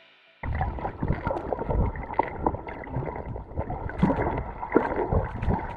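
Water heard through an underwater camera's microphone: a muffled, sloshing, gurgling rumble with many sharp crackles and clicks. It starts suddenly about half a second in.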